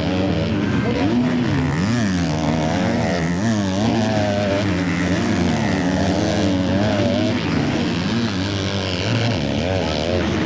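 Several motocross bikes racing, their engines revving up and down and overlapping as the riders work the throttle.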